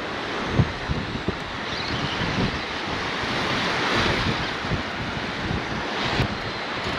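Ocean surf washing onto a beach, the wash swelling and easing about four seconds in, with wind buffeting the microphone in scattered low thumps.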